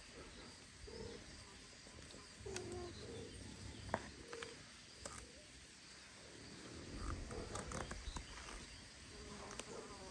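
Faint outdoor background with a handful of short, soft, low-pitched animal calls spread through it, and a few light clicks.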